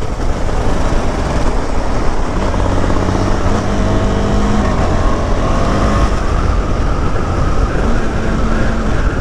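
KTM 390 Adventure's single-cylinder engine running under way, mixed with heavy wind rush on the mic. The engine note climbs and eases a little in the second half.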